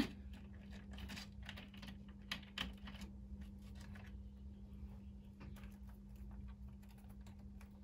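Chicken wire being squeezed and bent by hand, giving faint, irregular light clicks and rattles of the thin wire mesh, over a low steady hum.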